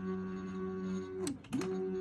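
Stepper motors of a LowRider v3 CNC running with a steady whine as the machine lowers its V-bit toward the tape. About a second and a quarter in, the pitch drops away as the motors slow to a brief stop, then it climbs back to the same whine as they move again.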